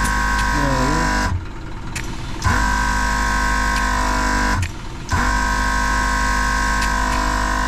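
Portable air compressor running with a steady droning whine while it inflates a tyre to seat its beads. It stops twice, for about a second and then for half a second, and starts again each time.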